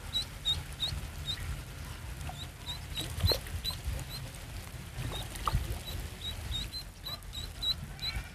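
A duckling dangled on a fishing line as live bait, peeping: short high chirps repeating two or three times a second in little runs, with brief pauses between them, over a low rumble.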